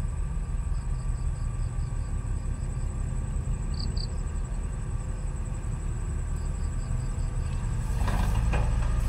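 Steady low engine rumble of heavy machinery running, with faint short high chirps now and then.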